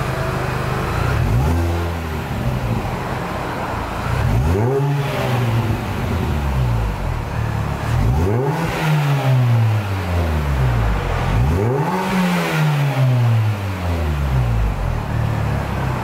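MINI R53 Cooper S's supercharged 1.6-litre four-cylinder, heard through a SACLAM rear silencer and centre pipe (quiet-spec) exhaust, idling and being revved: a short blip about a second and a half in, then three quick revs, each falling slowly back to idle.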